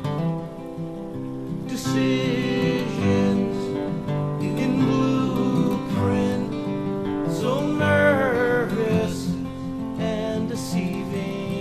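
Live acoustic guitar strumming a song, with a wavering melody line carried over it in the middle.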